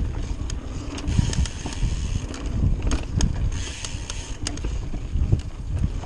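Trek Fuel EX mountain bike riding fast along a dirt singletrack: wind buffeting the action camera's microphone with a gusty rumble, tyres hissing over dirt and leaves, and scattered sharp clicks and rattles from the bike over bumps.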